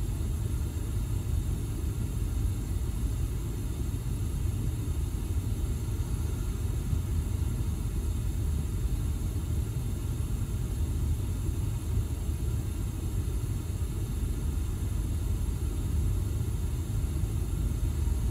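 Steady low rumble with a thin, constant high-pitched whine above it, unchanging throughout: background noise of the recording with no distinct event.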